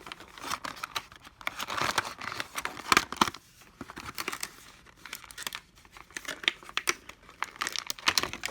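Packaging of a new HDMI cable being torn open and handled: irregular crinkling and tearing with sharp crackles, loudest around two and three seconds in.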